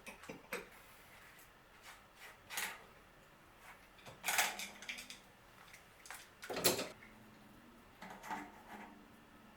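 Intermittent clunks and clatters of tools and bicycle parts being handled and set down during a bike teardown, with three louder knocks about two and a half, four and a half and nearly seven seconds in.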